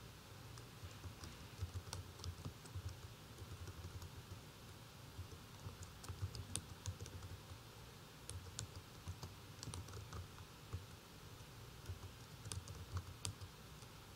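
Faint typing on a computer keyboard: irregular runs of key clicks separated by short pauses.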